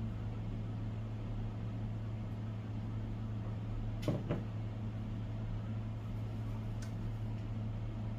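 A steady low hum, with two quick knocks close together about four seconds in and a faint tick near the end.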